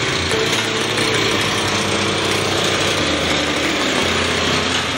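Small engine of a Mitsubishi MMR65 mini hand tractor (3.5 PS walk-behind tiller with rotavator) running steadily.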